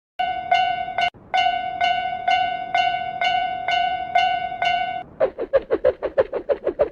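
Japanese railroad-crossing warning bell ringing its steady 'kan-kan' at about two strikes a second, then giving way about five seconds in to a faster run of short pulsing tones, about eight a second.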